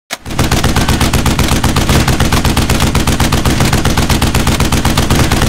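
Machine-gun fire sound effect: a rapid, even stream of heavy shots several times a second, starting abruptly and carrying on without a break.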